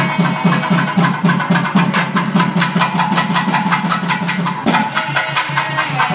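Gatti melam: fast, continuous drumming with held reed-pipe notes over it, the music played to mark the tying of the mangalsutra in a Hindu wedding rite. It breaks off briefly about four and a half seconds in.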